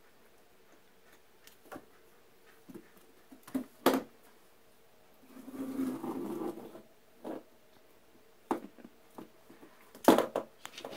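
Small knocks, taps and rustling as a baby vervet monkey handles and carries a small flashlight over carpet, with a longer scuffling rustle about halfway through. A sharper, louder clatter of several knocks comes near the end.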